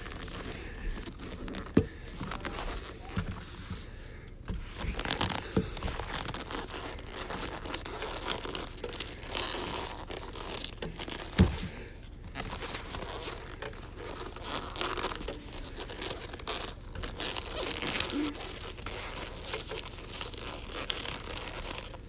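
Padded boxing gloves rubbing, creaking and crinkling against each other and against a plastic 3x3 speedcube as they push its layers round, with scattered soft knocks of the cube and one sharper knock about eleven seconds in.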